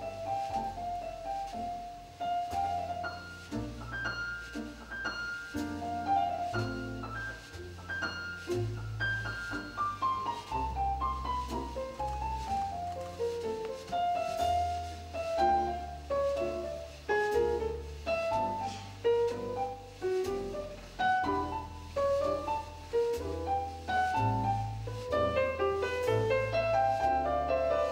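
Grand piano playing jazz: a flowing line of single notes rising and falling over deep, held bass notes.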